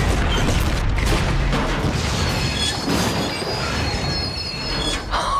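Film sound effect of a pickup truck exploding: a heavy boom at the start, then a continuous rumble and crackle of fire and falling debris, with high squealing sounds about halfway through and music underneath.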